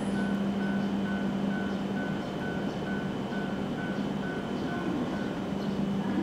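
Railway station ambience: a steady low hum over background noise, with a high electronic beep repeating about twice a second that stops near the end.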